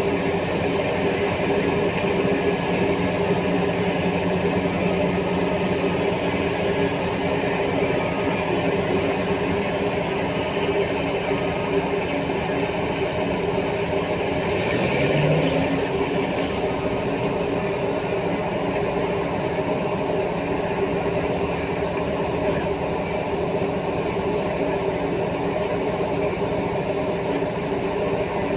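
Heavy diesel engines of a mining excavator and articulated dump truck running steadily under load, the engine note rising briefly at the start and again about halfway through.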